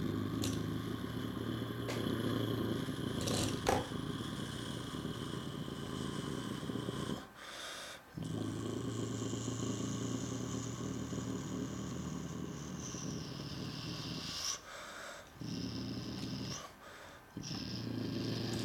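A person imitating a truck engine with the mouth, a low growling "brrr" held in long breaths, with short pauses about seven seconds in and twice more near the end.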